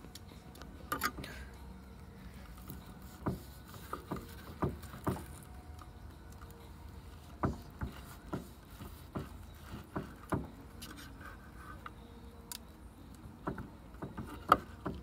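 A carving knife slicing a charred ribeye steak on a wooden cutting board, with the steak held by tongs: irregular knocks and taps of the blade and tongs on the board as it is cut, roughly one a second, the loudest near the end.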